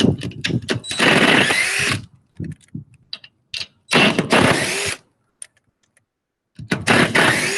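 A power tool fitted with a socket runs in three bursts of about a second each, with a rising whine, spinning the lug nuts off a car wheel.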